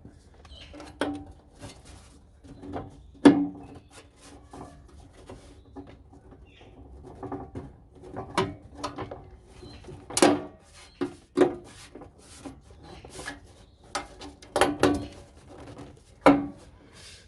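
Hard plastic intake parts being handled and pushed into place: irregular knocks, clicks and rubbing, with the loudest knocks about three seconds in, around ten and fifteen seconds in, and near the end.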